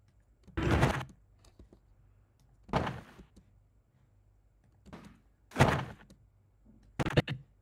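A series of five heavy thuds, about a second or two apart, the last a quick double strike.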